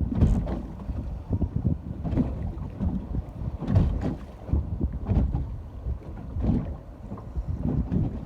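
Ocean water washing at the shore under heavy wind buffeting on the microphone, in irregular low rumbling gusts.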